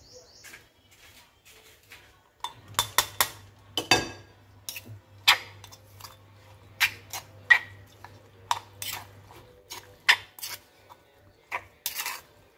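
Metal spoon clinking and scraping against a granite stone mortar as shredded green mango is stirred into chili paste. The clinks come in irregular sharp knocks, more often from about two and a half seconds in.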